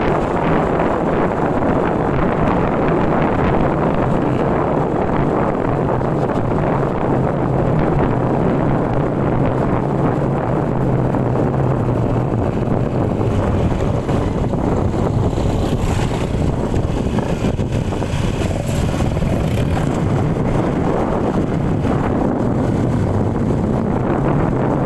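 Motorcycle engine running steadily at cruising speed, its low hum mixed with heavy wind noise buffeting the microphone.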